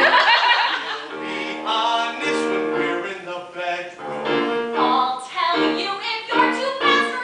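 Musical theatre song: a voice singing phrase by phrase over piano accompaniment.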